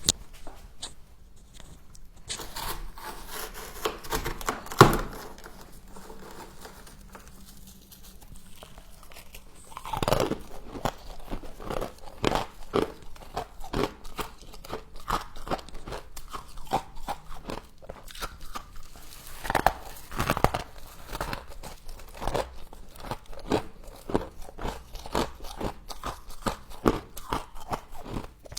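Frost being bitten and chewed: a dense run of crisp crunches, with louder bites about five, ten and twenty seconds in.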